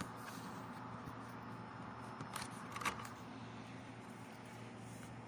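Two small sharp clicks about half a second apart near the middle, over a steady low hum: the plastic bottom cover of a laptop being pried open.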